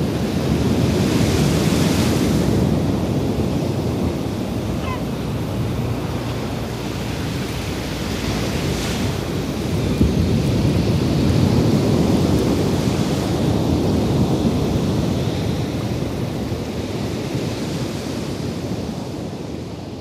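Ocean surf washing onto a beach, a steady rush that swells about two seconds in and again about ten seconds in, then slowly fades.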